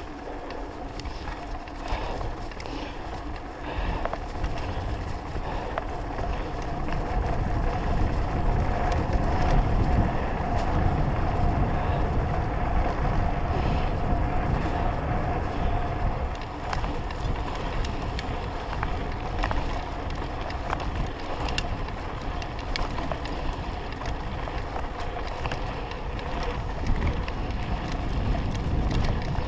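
Wind buffeting the microphone of a camera on a moving mountain bike, with tyres rumbling over a gravel track and the bike rattling on the rough surface. It gets louder from about eight seconds in.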